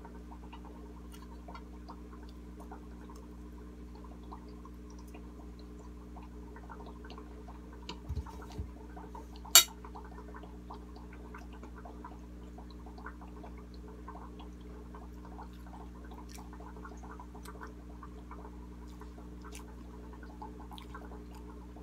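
Steady low hum with a faint trickle of water from a shrimp aquarium running close by, under soft chewing and small mouth clicks. A couple of soft thumps come at about eight seconds, and a single sharp clink follows about a second and a half later.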